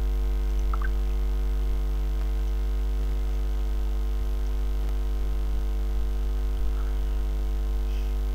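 Steady electrical mains hum, loud and unchanging, picked up by a poor-quality computer microphone: a deep drone with a ladder of overtones above it, the sign of electrical interference or a grounding fault in the mic setup.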